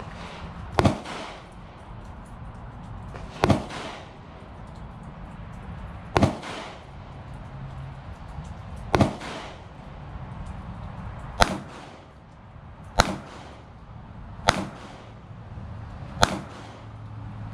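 Eight gunshots at an outdoor shooting range, each with a short echo. The first few come about every two and a half to three seconds, and they quicken to about every second and a half near the end.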